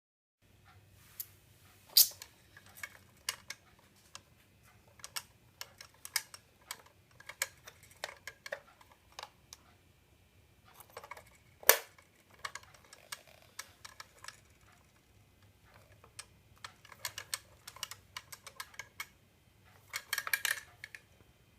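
Irregular sharp clicks and taps of a plastic toy coin bank being handled, with the loudest clicks about two seconds in and near the middle, and a quick flurry of clicks near the end.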